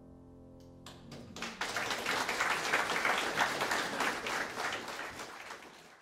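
The final chord of a Schimmel grand piano rings and fades. About a second in, a few claps start and quickly build into steady audience applause, which fades out near the end.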